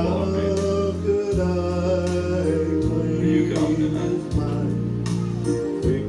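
A gospel song: men singing into microphones over instrumental accompaniment, with sustained bass notes that change every second or so.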